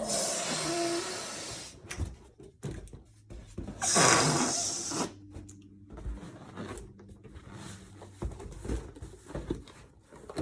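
Electric balloon pump blowing air into a latex balloon, cutting off about two seconds in, then a second short burst of about a second near the middle. After that come faint scattered clicks and rubs of balloons being handled.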